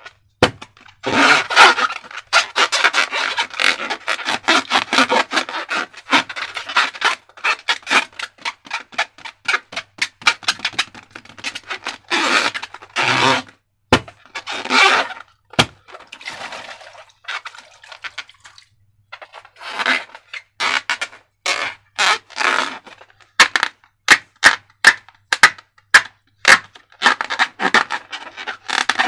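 Slime being squeezed, scraped and stretched by hand, with crackling, squelching noise and many sharp clicks and pops. Near the end comes a run of evenly spaced sharp clicks, about two a second.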